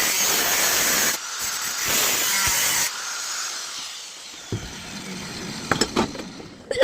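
A power tool runs with a loud hissing noise, briefly dips about a second in, and is switched off about three seconds in, winding down with a falling whine. A few sharp knocks follow near the end.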